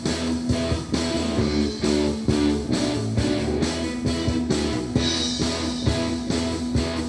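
Rock music with guitar and a steady drum beat, played back from a Digital Compact Cassette on a Philips DCC771 deck.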